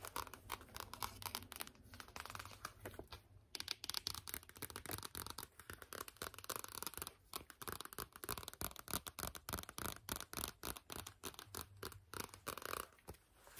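Long fingernails tapping and scratching rapidly on a glossy softcover magazine, with the rustle of the magazine being handled, pausing briefly about three and a half seconds in.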